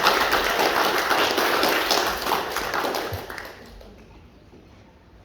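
Audience clapping, a dense patter of many hands that tails off and dies away about three and a half seconds in.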